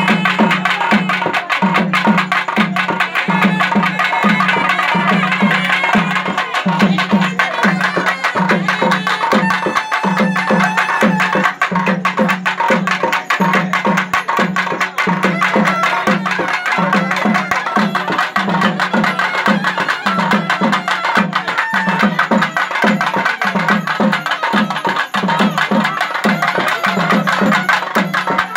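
Live Tamil temple-festival music: a deep drum beating steadily about twice a second under fast, dense stick strokes, with a reed pipe playing a held melody over it.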